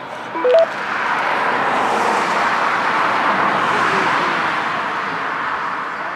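A two-way radio gives a short rising two-note beep. Then a road vehicle goes by with a rushing tyre-and-engine noise that swells over the first couple of seconds and slowly fades.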